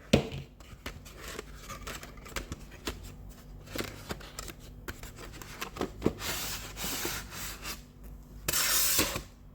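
A cardboard model box being opened and its packaging handled: scattered light taps and scrapes, then two longer rustles of paper and card near the end.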